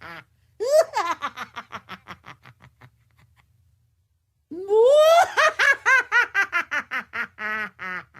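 Witch's cackling laugh sound effect in two bouts: a high shriek about half a second in that breaks into quick 'ha-ha' pulses and fades off, then after a short pause a second, louder cackle rising into a fast run of about five pulses a second.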